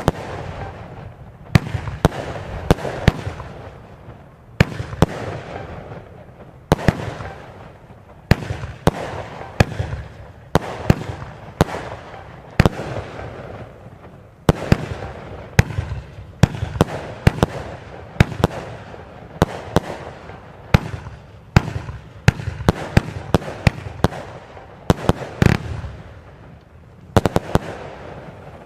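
Vulcan 'Bloody Red' consumer fireworks cake firing a long string of shots. Each shot is a sharp bang as a star shell bursts, the bangs coming in quick clusters every half second to two seconds, with rolling echo between. The firing stops shortly before the end.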